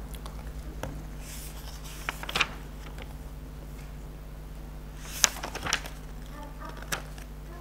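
Quiet pause with a steady low hum. A few brief clicks and short paper rustles come from the pages of a book being handled.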